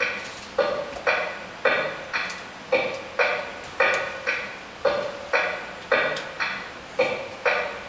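Steady rhythmic percussion: about two sharp, ringing pitched strikes a second, alternating between a lower and a higher-sounding stroke, each dying away before the next.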